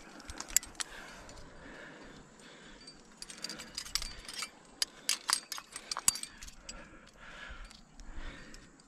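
Metal climbing gear clinking and jangling: carabiners and cams on the harness rack knocking together and against the anchor chains. A few sharp clicks about half a second in, then a dense run of clinks from about three to six seconds in, with soft breathing in between.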